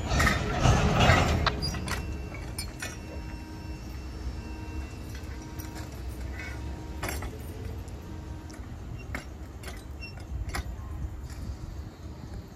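Scattered metallic clinks and clanks from a hand-thrown railroad track switch being worked, its lever and fittings knocking, over a low steady rumble. A louder rush of noise fills the first second or so.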